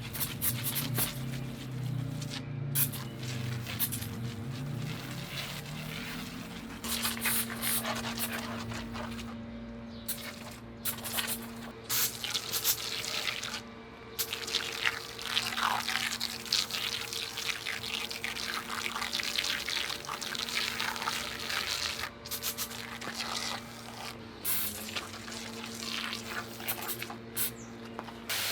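Water spraying and dripping in irregular bursts, over background music with held low notes.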